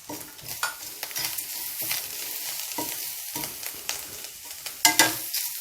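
Grated coconut sautéing in coconut oil in a pan, stirred with a spatula: a steady sizzle with occasional scrapes against the pan, the strongest near the end.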